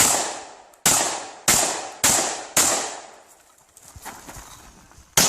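Shotgun firing in a competition stage: five loud shots about half a second to a second apart, then a pause of about two and a half seconds with faint clicks, and one more shot near the end. Each report rings out briefly.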